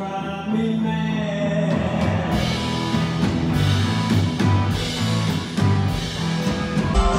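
Rock music with a singer and drums, playing steadily, with an abrupt change in the sound just before the end.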